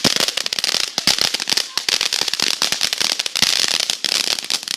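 Lit consumer firework crackling: a dense, rapid string of sharp pops and cracks that keeps up without a break and dies out right at the end.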